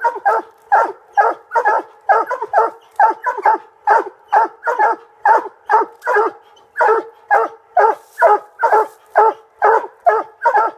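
Coon hunting dogs barking fast and steadily, about two to three barks a second without a break: the chop of hounds barking treed, urged to get up the tree.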